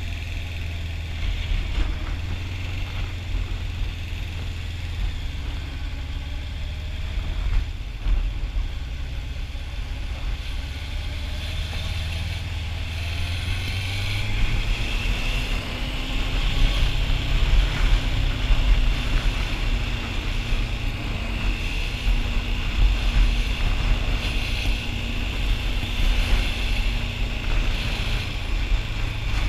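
Motorcycle engine running in traffic with wind noise. It runs low and steady for the first half, then grows louder about halfway through as the bike picks up speed.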